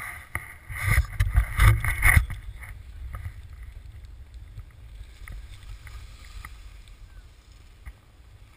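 Wind and handling buffeting a helmet-mounted action camera's microphone, with loud knocks in the first couple of seconds, then a quieter steady rumble and hiss with scattered clicks as skis slide over packed snow.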